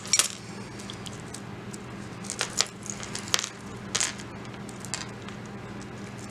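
A beaded necklace of wooden and carved beads being picked up and handled, its beads clicking together in a few scattered light clicks.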